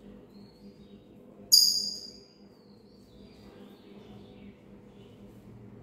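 A parrot giving one loud, sharp, high-pitched call about one and a half seconds in that quickly fades, with faint chirps around it.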